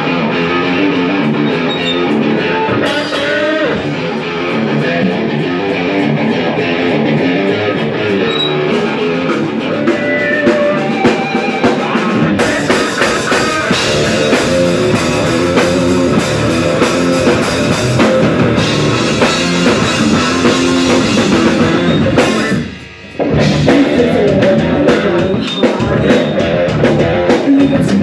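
Live rock band playing: electric guitar and bass guitar with a drum kit. The texture is lighter at first, the full band with drums comes in about twelve seconds in, and there is a brief stop about three-quarters of the way through before the band comes back in.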